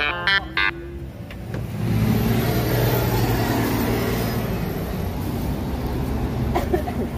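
Motor vehicle engine noise from traffic close by. It swells about two seconds in and then holds steady. A few short pitched tones sound at the very start.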